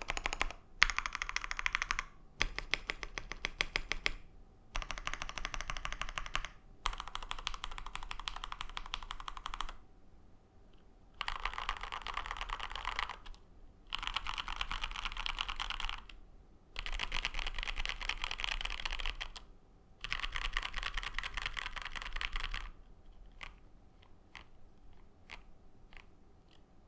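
KBDFans KBD67 Lite R2 mechanical keyboard with lubed Lavender linear switches, polycarbonate plate and JTK Zen keycaps. Short bursts of rapid presses on the modifier keys are followed, about ten seconds in, by four fast runs across the a-to-l home-row keys, then a few separate keystrokes near the end.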